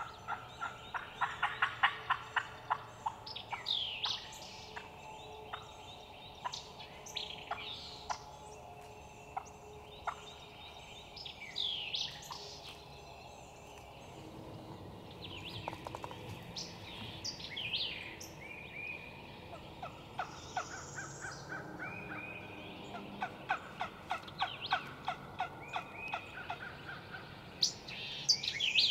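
Eastern wild turkey calling: quick runs of repeated notes near the start and again near the end, with songbirds chirping in between.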